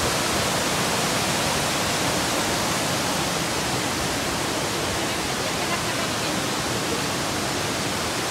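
Steady rush of a waterfall and a fast-flowing river over rocks.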